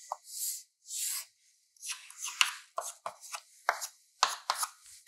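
Chalk on a blackboard: two longer scraping strokes as lines are drawn, then a run of short scratches and taps as corner letters are written.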